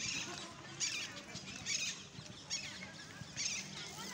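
Small birds chirping in short repeated bursts, about one a second.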